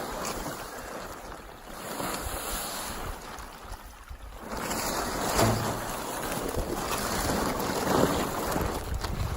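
Wind buffeting the microphone in uneven gusts over a rush of water in an irrigation ditch. It grows louder about halfway through.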